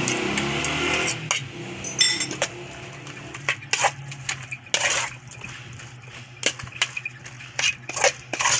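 A metal spoon scraping and clinking against a metal mixing bowl as a wet, mayonnaise-dressed pork mixture is stirred, in irregular strokes with a louder clink about two seconds in. A steady low hum runs underneath.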